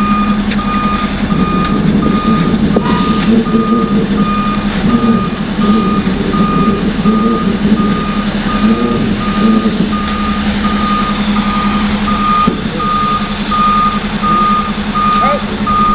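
Concrete mixer truck's reversing alarm beeping steadily, a little more than once a second, over the truck's diesel engine running.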